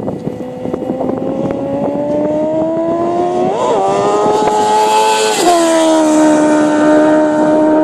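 1000cc sport motorcycle engine at full throttle on a high-speed wheelie run on ice, its note climbing steadily as it approaches, with a brief wobble about three and a half seconds in. About five and a half seconds in the pitch drops sharply as it passes close by, and it is loudest just after.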